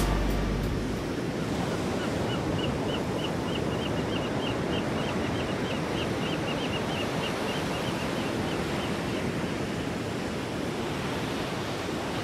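Surf washing onto a beach: a steady rush of small waves, with background music fading out in the first second. A faint high chirp repeats about three times a second from about two seconds in until about nine and a half seconds.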